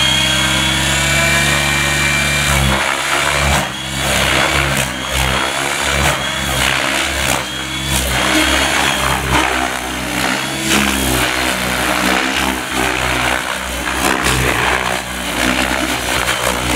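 Radio-controlled helicopter flying aerobatics. Its motor and rotor give a steady whine and hum for the first few seconds, then surge and chop in rapid pulses as the heli flips and swoops, the whine rising and falling in pitch.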